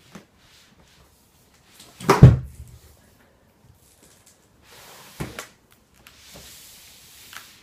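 The cardboard box of a SRAM Red eTap groupset being opened by hand: a thump about two seconds in, then smaller knocks and a soft scraping rustle as the lid is lifted and stood up.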